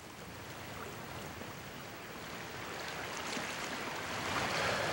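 A steady wash of sea water and wind that slowly swells louder toward the end.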